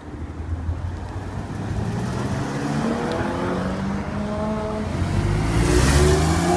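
A sports car's engine revving and accelerating, its pitch climbing as it builds speed and getting louder until it is loudest near the end.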